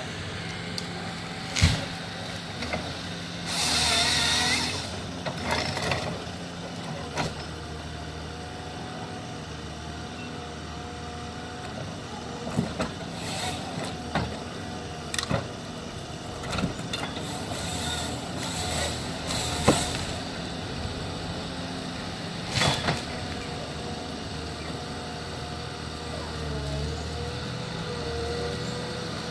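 John Deere wheeled forestry harvester working: its diesel engine runs steadily under a held hydraulic whine while the boom and harvester head move. Sharp cracks and knocks of wood recur throughout, and a loud rushing hiss comes about four seconds in.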